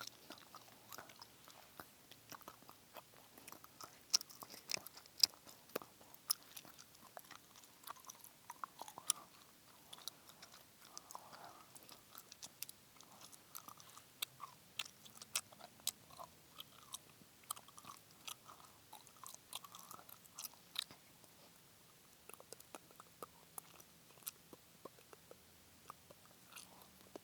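Close-up chewing-gum mouth sounds: irregular wet clicks, smacks and pops from gum being chewed.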